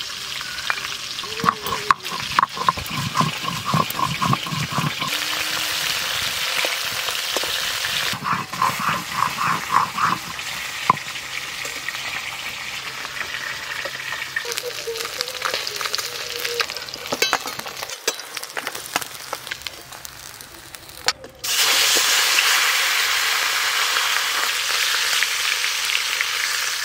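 Chillies ground on a stone slab with a stone roller, in runs of rhythmic scraping strokes. About 21 seconds in, a cut brings on the steady loud sizzle of snakehead fish pieces frying in hot mustard oil in a wok, stirred with a metal spatula.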